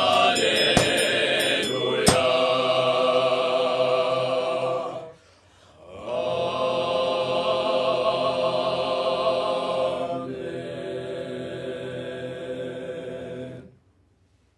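Male voice choir singing long, held chords of a closing sung amen: one chord, a short break about five seconds in, then two more chords, the last one softer, cutting off about a second before the end.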